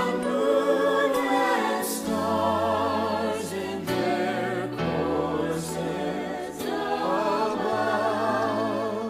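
Background music: several voices singing a slow, gospel-style song with vibrato on held notes, over sustained low bass notes that change every second or two.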